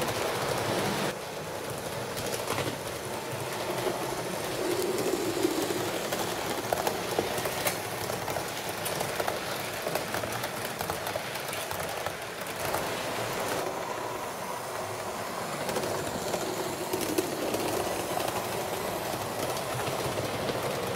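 HO scale model train running along the track, with irregular clicking of its wheels over the rail joints.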